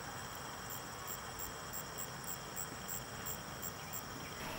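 Field insects chirping: a steady high drone with a short chirp repeating about three times a second.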